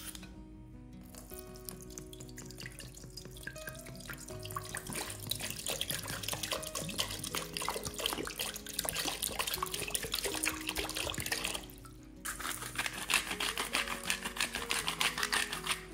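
A stream of water running into a large coated metal cooking pot. It grows fuller and cuts off suddenly about twelve seconds in. After a brief gap comes a dense, crackling patter of salt being sprinkled into the water.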